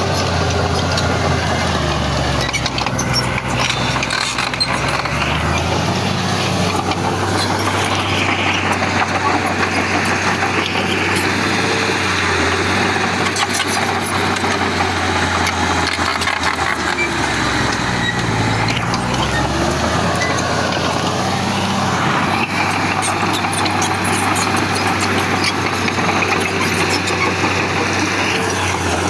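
Heavy diesel earthmoving engine running steadily under work, its revs dropping and climbing again a couple of times.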